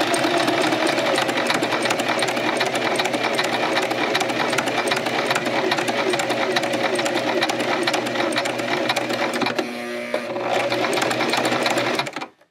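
Singer electric sewing machine stitching, its needle running in a fast, steady stream of strokes. It briefly eases off about ten seconds in, then runs on and stops suddenly near the end.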